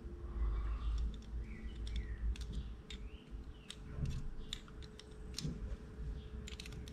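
Irregular light metallic clicks and brief scrapes of a small open-end wrench working on the breaker points of an Indian Chief engine's Autolite distributor, as the points are bent into alignment.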